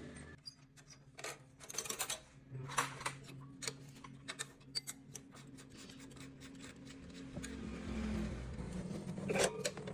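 Irregular sharp metallic clicks and clinks of tools or parts being handled, with a low hum that grows louder in the last couple of seconds.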